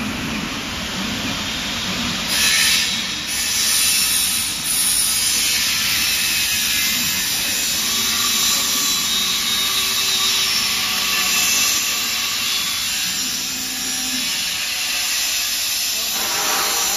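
Fabric laser cutting machine running: a steady hiss of moving air with a mechanical hum, and faint whining tones that come and go as the cutting head moves.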